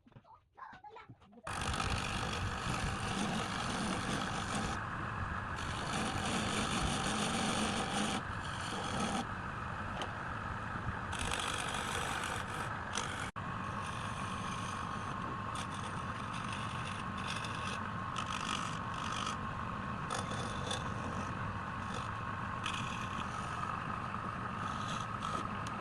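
A power woodworking tool running steadily on wood, starting abruptly. The scraping, cutting noise comes and goes as the tool bites into the wood and eases off.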